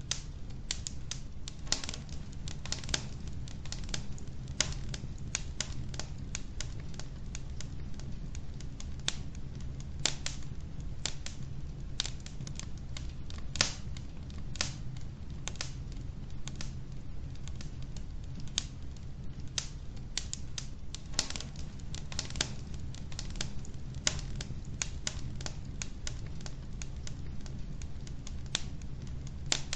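Wood logs burning in a fireplace, crackling with irregular sharp pops, a few a second and varying in strength, over a steady low rumble.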